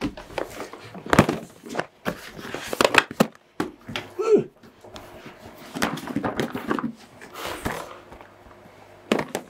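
Cardboard product boxes being gathered up and handled, with irregular scraping, rustling and knocks as they bump against each other.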